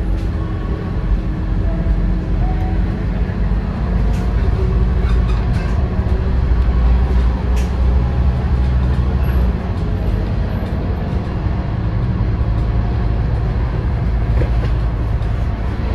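Scania N230UD double-deck bus under way, its diesel engine giving a steady deep drone over road noise. The engine grows louder from about six seconds in and eases off again around nine and a half seconds.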